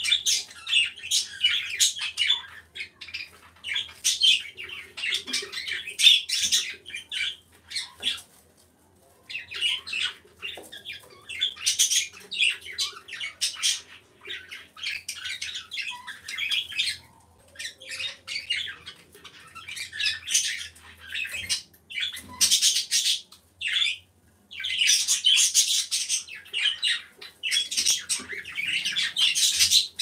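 Birds chattering: dense bursts of high-pitched chirps and squawks that keep coming and going, with a few short breaks.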